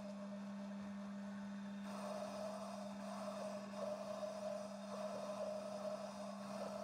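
Metal lathe running with a steady hum, a parting tool cutting off a nut from the spinning bar stock with an uneven cutting noise over it.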